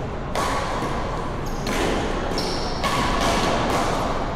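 Badminton play in a sports hall: a few sharp hits and thuds that echo in the hall, roughly one a second, with short high squeaks.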